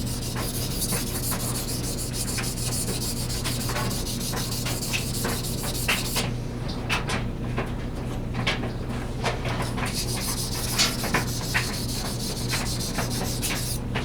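Steel knife blade being stroked back and forth across a wet King 1000-grit water stone: a continuous gritty scraping made of many quick strokes. About six seconds in, the high hiss thins and the strokes become shorter and more separate.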